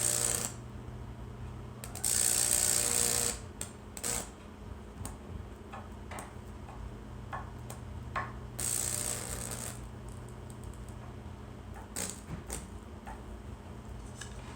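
Lichtenberg wood-burning machine powered up: its high-voltage transformer hums steadily while the electricity arcs and crackles through the wet wood, with two louder bursts of hissing sizzle, the first about two seconds in and the second near nine seconds.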